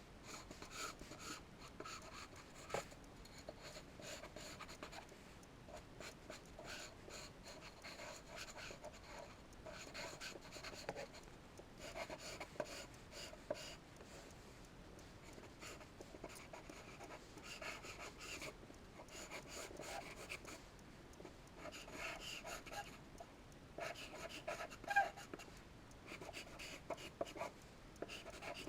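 Scratchy strokes of charcoal drawing, coming in short irregular runs with brief pauses between them, with one sharper click near the end.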